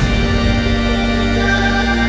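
Background music with sustained held chords.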